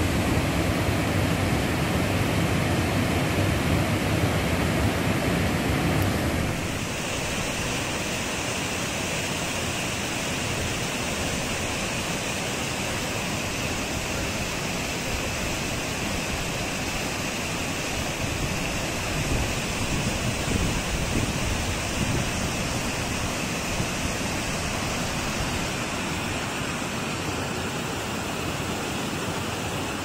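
Steady rush of a mountain waterfall and stream. About six seconds in the sound shifts abruptly to a thinner, hissier rush that holds steady.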